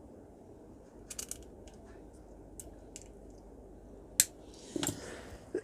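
Scattered small clicks and taps of hand tools and parts being handled, with a sharp click about four seconds in and a short rustle near the end.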